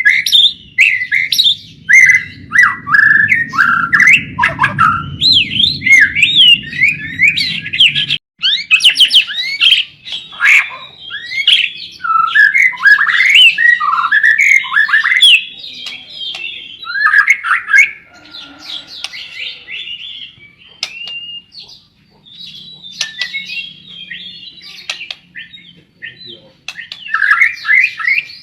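Blorok bird song: rapid, continuous chirps and quick whistled notes sweeping up and down, thinning out briefly in the second half. A low background rumble drops away about eight seconds in.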